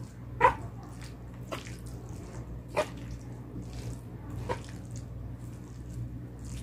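Spoon and fork clinking against a plate a handful of times, about a second apart, while noodles are mixed and eaten, over a steady low hum.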